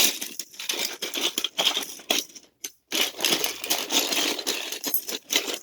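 Hands rummaging through a bag of Beyblade parts: small hard pieces clicking and clattering against each other in a rapid jumble, pausing briefly twice about two and a half seconds in.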